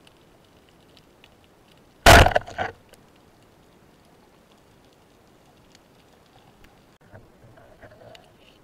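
Rubber-band speargun fired underwater: one loud sharp crack about two seconds in, followed about half a second later by a smaller knock as the shaft strikes. Faint underwater hiss and small clicks around it.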